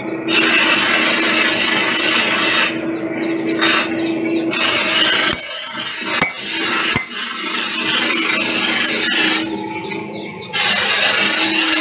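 Steel being ground on a motor-driven grinding wheel: a harsh hissing scrape that comes in several long stretches with short breaks, over a steady hum, with a few sharp clinks in the middle.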